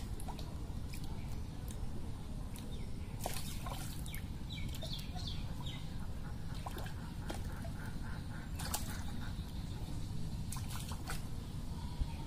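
Outdoor background by a pond: a steady low rumble with scattered bird calls, including a run of quick repeated calls about seven seconds in, and a few sharp clicks.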